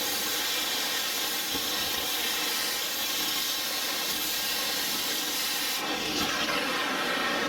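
Oxy-acetylene torch flame hissing steadily as it melts through a stabilizer link's steel nut and stud.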